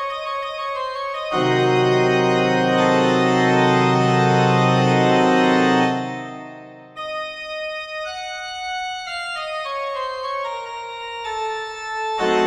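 Classical instrumental music: stepwise running notes, then a loud held chord that fades away about six seconds in. The music starts again abruptly a second later with rising and falling runs, and another loud chord comes in near the end.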